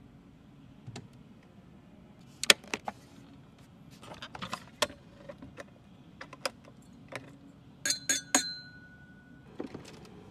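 Crystal glasses clinking and clicking against their fitted holders and each other as they are handled in a car's rear console. About eight seconds in, three quick clinks leave a short ringing glass tone.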